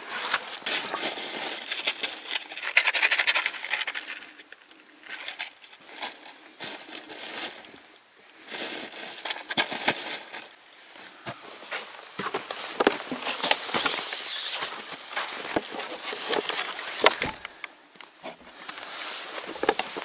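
Close rustling and crackling of dry hay and a bag as they are handled, coming and going in irregular spells with many small crackles.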